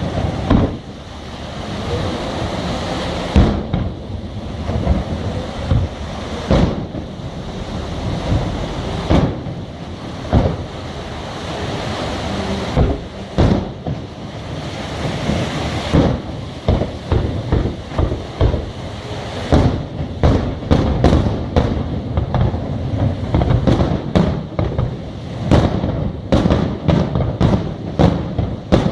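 Fireworks display: aerial shells bursting with sharp bangs at irregular intervals over a rumbling haze, the bangs turning into a rapid string about two-thirds of the way through.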